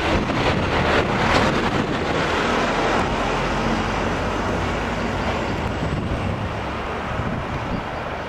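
Loaded double-deck car-carrier wagons of a freight train rolling past on the rails: a steady rumble with a few sharp wheel clicks in the first second and a half, growing fainter near the end as the tail of the train draws away.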